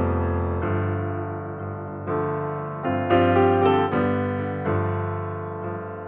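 Background piano music: single notes and chords struck and left to fade, a new phrase starting every second or so.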